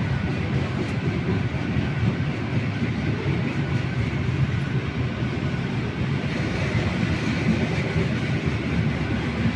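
Passenger train running past with a steady rumble of its cars on the rails.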